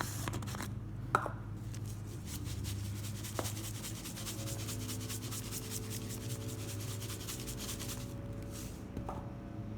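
Rapid, fine scratchy rubbing as adobo seasoning is put onto raw chicken in a bowl, over a steady low hum.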